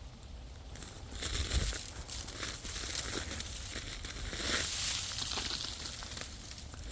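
Irregular crackling and crunching of ice in a frozen, ice-glazed forest, rising and falling in loudness, with a low rumble underneath.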